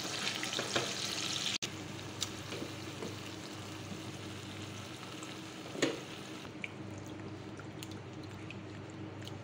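Chicken frying in oil in a nonstick wok, sizzling loudly, then dropping to a much quieter sizzle after about a second and a half, once coconut milk and cream are in the pan. A few light ticks of a silicone spatula stirring follow, with one louder knock midway.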